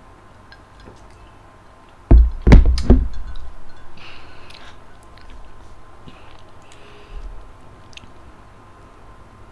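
Three heavy, dull thumps in quick succession, the loudest sounds here, each fading out over about a second.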